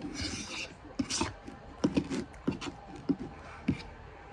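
Close-up mouth sounds of someone eating spaghetti: a short slurp at the start, then chewing with a string of wet smacks and clicks, about two a second.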